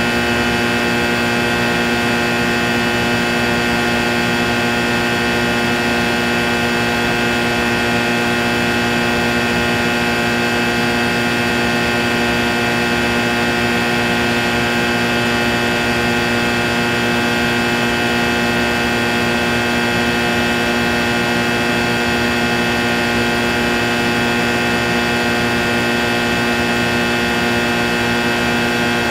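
Steady electrical hum and buzz: many steady tones stacked together with a hiss over them, unchanging in level.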